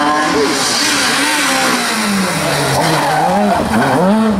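Rally car engine at high revs passing close by. The revs fall about halfway through, then rise and fall several times near the end as the throttle is worked through the corner, with the tyres skidding on the loose, dusty road surface.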